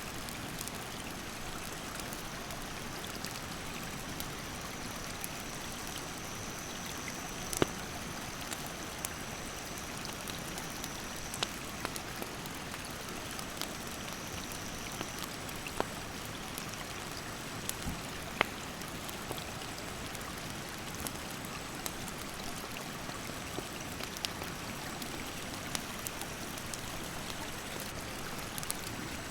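Steady rush of a rocky mountain stream, with the sharp, irregular crackles and pops of a wood campfire burning beside it. A thin, high, steady tone comes and goes over the top.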